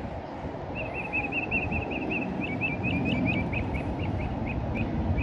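A bird chirping in a long series of quick repeated notes that slows toward the end, over a steady low background rumble.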